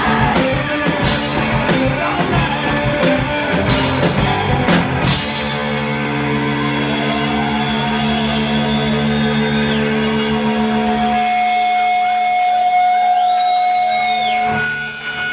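Live rock band with electric guitars and drum kit playing loudly; about five seconds in the drums stop and held electric guitar notes ring on, with a few slow sliding tones.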